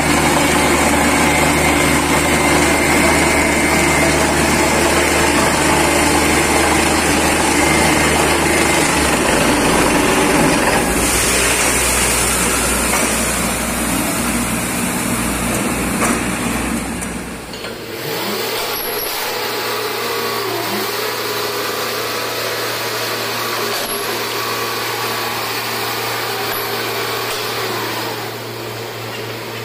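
Borewell drilling rig running loud and steady while air blows water and cuttings up out of the bore. About two-thirds through, the blast cuts out, leaving the rig's engine running more quietly.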